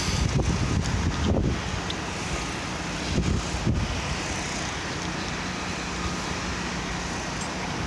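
Wind gusting on the microphone over a steady outdoor rush of noise, with the gusts strongest in the first second and a half and again around three seconds in.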